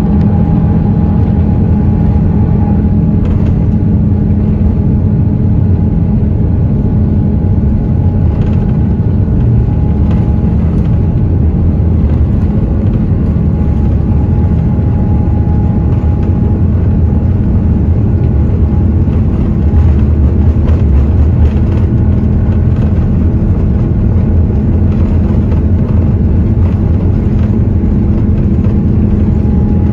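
Airliner turbofan engines running at takeoff power: a loud, steady low rumble with a few steady held tones over it.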